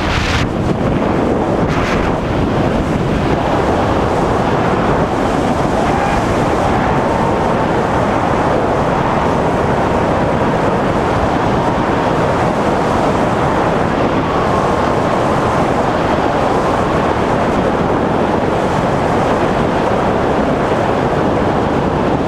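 Freefall wind blasting over an action camera's microphone during a tandem skydive: a loud, steady rush of wind noise.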